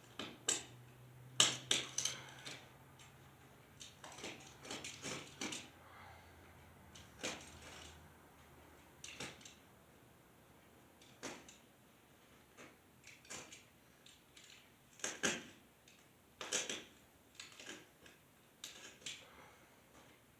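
Irregular metallic clicks and clinks of anchor hardware and tools being handled, coming in short clusters every second or two, the loudest about a second and a half in.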